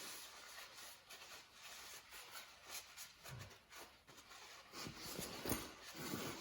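Faint rubbing and scratching with scattered light clicks, a little busier near the end.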